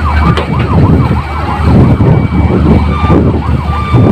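A fast warbling siren, its pitch rising and falling about four times a second; around three seconds in it breaks into short steady tones. A steady low drone runs beneath it.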